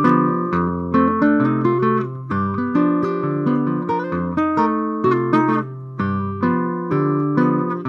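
Solo acoustic-electric guitar played fingerstyle: a chord-melody arrangement with plucked melody notes and chords over bass notes, each note ringing and fading.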